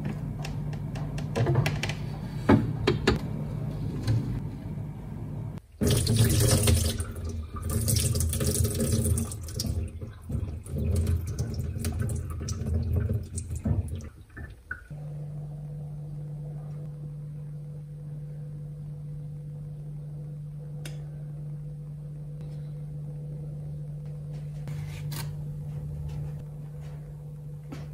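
Kitchen tap water running and splashing in the sink for about eight seconds, starting about six seconds in and stopping sharply, with clinks of handling before it. After it, a steady low hum with a few light clicks.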